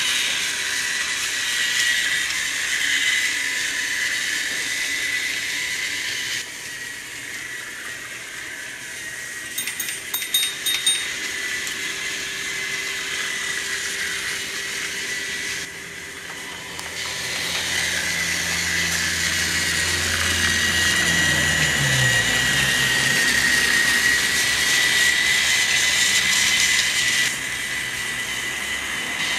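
Battery-powered Trackmaster toy train engine running along plastic track, its small electric motor giving a steady high whine over the rattle of the wheels, with a short run of clicks about ten seconds in.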